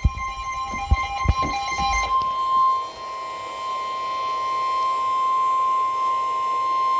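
NOAA Weather Radio warning alarm tone: one long, steady, high beep at about 1050 Hz, the signal that a warning message is about to be read. For the first two seconds it is mixed with a second, broken beeping tone and a few low thumps.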